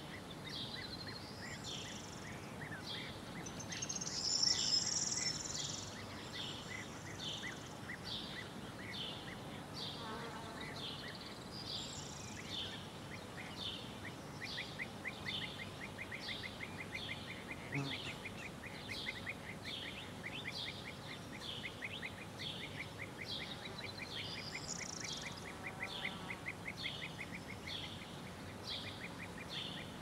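Several songbirds singing over light wind: short high chirps repeat steadily, a louder burst of song comes about four seconds in, and from about halfway a fast ticking trill runs underneath for most of the rest.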